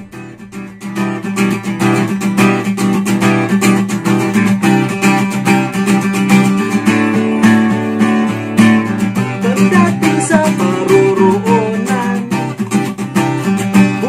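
Background music led by a strummed guitar.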